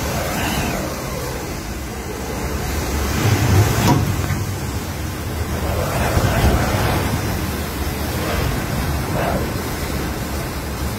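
Typhoon winds howling in strong gusts: a steady rushing noise with a deep rumble that swells about three to four seconds in and again a little past six seconds.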